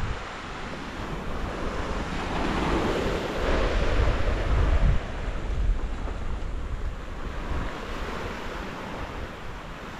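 Outdoor seaside ambience: wind buffeting the microphone over the wash of small waves on a pebble beach. The rumble swells for a few seconds and drops off suddenly about five seconds in.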